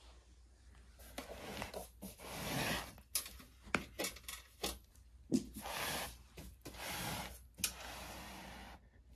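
Handling noise: several rubbing, scraping passes of about a second each, broken by a few sharp clicks.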